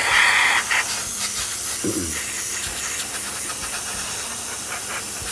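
Airbrush hissing as it sprays metallic paint onto small die-cast metal parts, louder for the first second. The air pressure has been lowered for the small parts.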